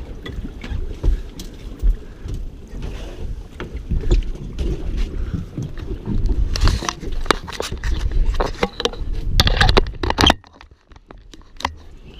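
Wind buffeting the microphone and water lapping at a small boat's hull, as an uneven low rumble with scattered sharp knocks and clicks. The rumble drops away suddenly about ten seconds in.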